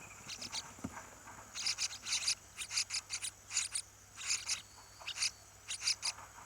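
Insects chirping in short, raspy, high-pitched bursts, two or three a second.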